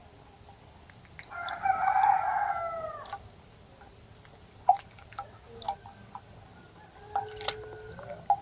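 A rooster crows once, a single call of about two seconds that drops in pitch at the end. Scattered short clicks and chirps follow.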